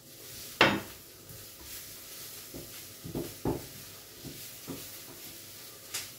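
Table knives scraping and tapping as cream cheese is spread on a sheet of puff pastry on baking paper: one sharp knock about half a second in, then a scatter of lighter knocks and scrapes.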